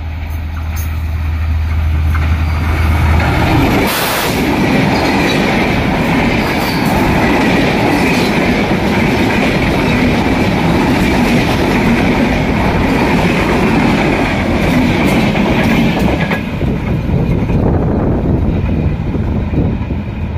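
Diesel locomotive of an intercity passenger train droning as it approaches, then passing close by about 4 seconds in. Its coaches follow in a loud rush of wheels on rail that eases off after about 16 seconds.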